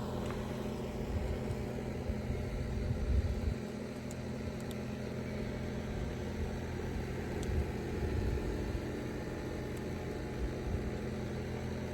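Steady low hum and rumble of outdoor background noise, with a few soft low bumps along the way.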